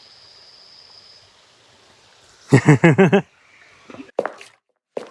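Faint, steady rush of water from a small park waterfall, broken about two and a half seconds in by a short, loud, voice-like sound that bends in pitch, then a few brief clicks.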